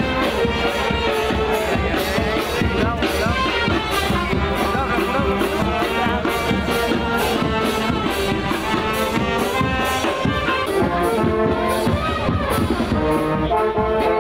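Street band music: brass instruments playing a tune over a steady drumbeat.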